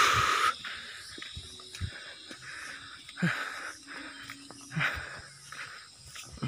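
A person breathing hard while climbing steep concrete steps, a loud puff of breath right at the start and more heavy breaths about three and five seconds in: out of breath from the climb.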